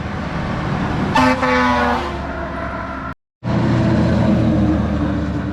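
A large truck's engine running close by, with one horn blast lasting under a second, about a second in. The sound cuts out briefly a little past the three-second mark.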